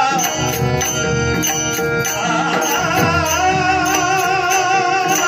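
Male devotional bhajan singing: a solo voice holding long, ornamented notes with a wavering pitch into a microphone, over a steady instrumental drone and a regular beat from a hand drum and other percussion.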